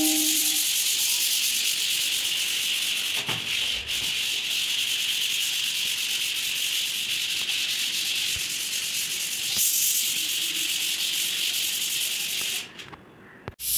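Dried wall putty being hand-sanded with an emery sheet: a steady, scratchy hiss of abrasive paper rubbing back and forth over the wall. It stops about a second before the end.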